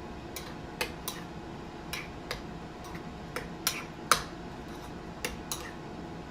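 A utensil stirring sauce in a bowl, clinking sharply against the side in an irregular run of about two clicks a second.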